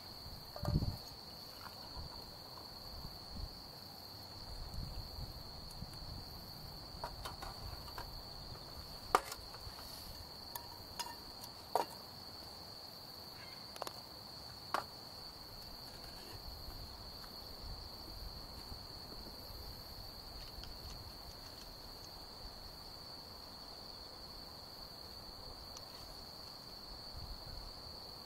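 Crickets trilling in one steady high note, with a few sharp crackles from the campfire now and then.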